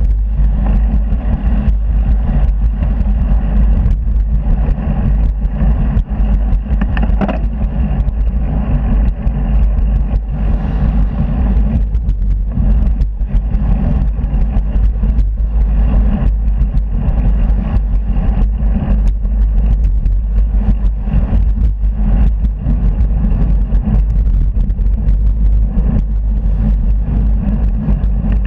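Road traffic on a dual carriageway, with cars and vans passing close by a moving bicycle, heard as a loud, steady low rumble. Wind buffets the handlebar camera's microphone with irregular thumps.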